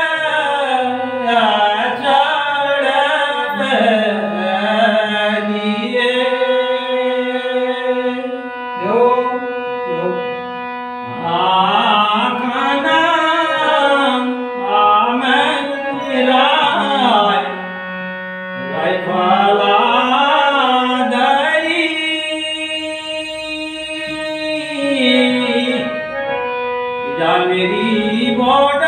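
A man singing a Kumaoni nyoli, a slow folk song, solo voice with long held notes and wavering, ornamented glides between them.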